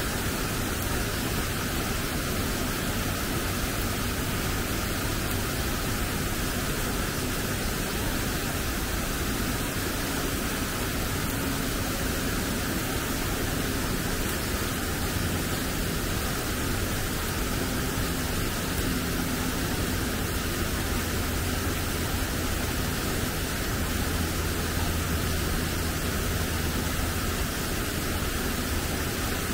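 Steady rushing of water from the enclosure's fountain or waterfall, an even hiss that does not change.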